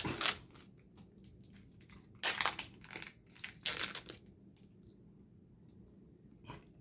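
Plastic candy wrapper crinkling as a Chamoy Pulparindo tamarind bar is handled and opened: three loud rustling bursts in the first four seconds, then faint clicks and one last small rustle near the end.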